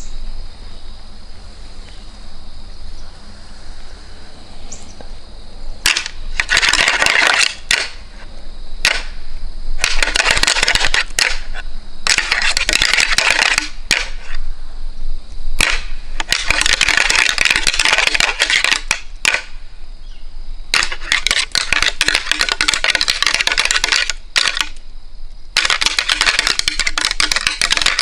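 A pair of whitetail deer antlers being rattled, clashed and ground together by hand. Six bouts of rapid clicking and clacking, each one to three seconds long, start about six seconds in. This imitates two bucks sparring, to draw in a buck.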